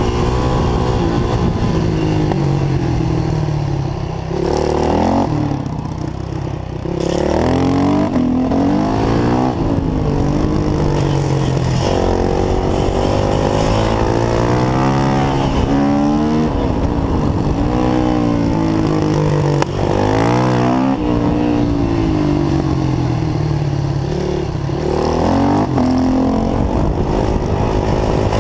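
Yamaha YZ450's single-cylinder four-stroke engine heard from onboard, revving up and dropping back over and over as the bike accelerates out of corners and slows into the next.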